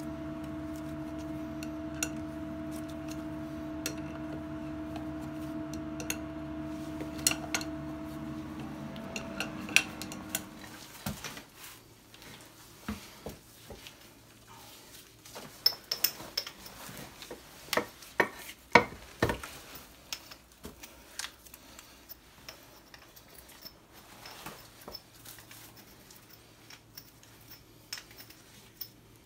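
The hydraulic power unit of a pipe-bursting rig hums steadily, then stops about ten seconds in. After that comes a run of irregular metallic clanks and clinks as the steel puller frame and its fittings are handled and lifted.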